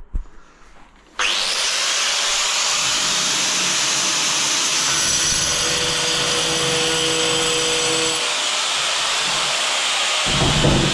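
Angle grinder cutting into a hard tile, starting abruptly about a second in and then running steadily with a loud, bright grinding noise.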